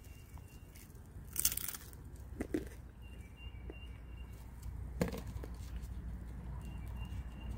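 Faint handling noises of eating at a table: a short rustle about a second and a half in and a few soft clicks, over a low steady rumble.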